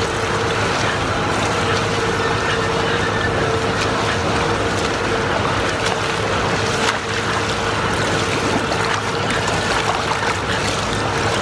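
Indoor pool ambience: a steady hum and hiss, with the splashing of a swimmer's freestyle strokes.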